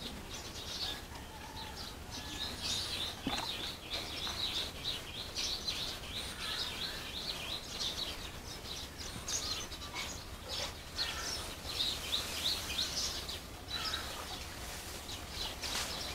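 Small birds chirping busily, a steady stream of short, high chirps overlapping one another.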